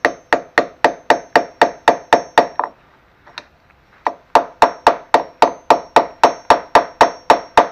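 Hammer tapping lightly and steadily, about four taps a second, on a metal driver tool to press a new fuel inlet seat into a lawn mower carburetor body, each tap with a faint metallic ring. The tapping stops for about a second and a half near the middle, then resumes.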